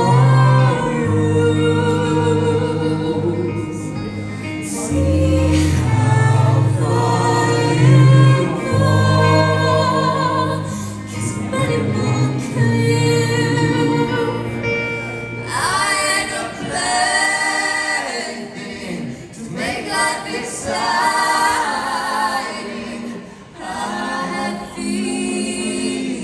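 Live rock band playing, a woman singing lead with other voices joining in over guitars, keyboard and drums. About 15 seconds in the low bass drops out, leaving the singing more exposed.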